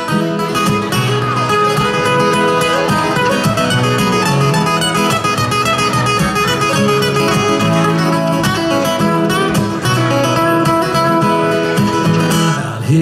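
Acoustic guitar playing an instrumental break in a country song, with steady strums and ringing chords and no singing.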